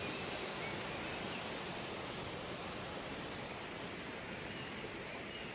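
Steady rush of a waterfall, with a few faint high bird chirps over it.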